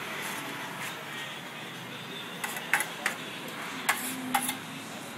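Metal kitchen utensils clinking against a griddle and plates: a run of sharp, short clicks in the second half, over a steady background hiss.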